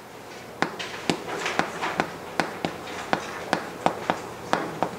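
Chalk writing on a chalkboard: a string of sharp taps, about two or three a second at an uneven pace, with light scratching between them as the letters are formed.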